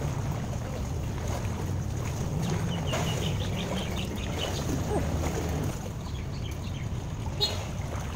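Pool water splashing and lapping as a swimmer moves through it close to the microphone, with steady wind rumble on the microphone. A short sharp splash comes near the end.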